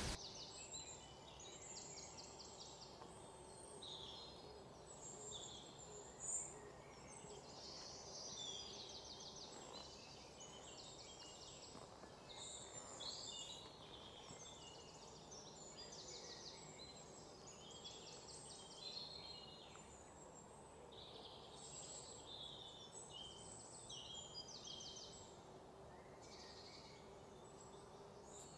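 Faint outdoor ambience with small birds chirping and trilling, many short calls one after another throughout.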